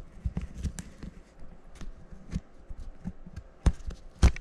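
A thick synthetic soft shackle and recovery rope being handled one-handed on a stone countertop: rope rustling with scattered light knocks, and two sharper knocks near the end, the second loudest.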